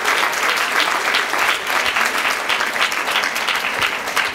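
Audience applauding, a dense crowd of clapping hands at the end of a talk.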